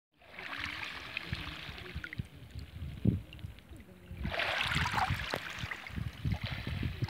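Shallow sea water sloshing and lapping over a pebble bottom as a hand moves through it, with a low rumble underneath. The sloshing gets louder about four seconds in.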